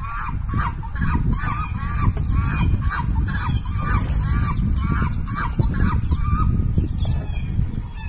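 An electronic bird-repellent device's loudspeaker plays honking, goose-like bird calls in quick succession, roughly two or three a second. The calls stop about six and a half seconds in, over a heavy low rumble.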